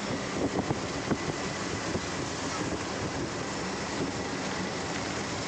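Auto-rickshaw riding along: steady engine and road noise from inside the open cabin, with a few light rattles in the first second or so.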